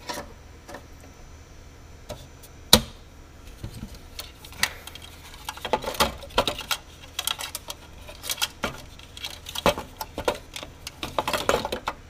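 Hands fitting plastic and metal parts inside a rackmount server chassis: irregular clicks, knocks and rattling, busier in the second half, with one sharp knock a little under three seconds in.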